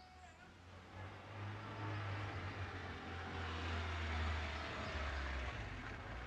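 A car approaching: low engine rumble and tyre noise that grow louder from about a second in, then ease off near the end.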